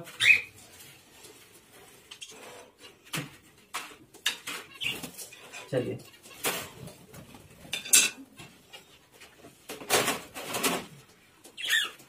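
Pet budgerigars and cockatiels giving short chirps and calls now and then, mixed with sharp metallic clinks and rattles of a wire cage being tapped with a stick.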